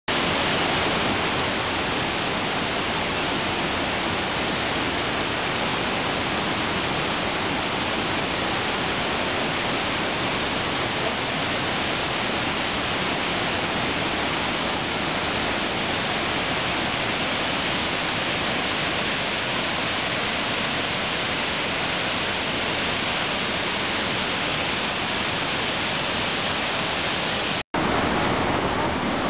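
Waterfall cascading over rocks: a loud, steady rush of falling water, broken by a split-second gap near the end.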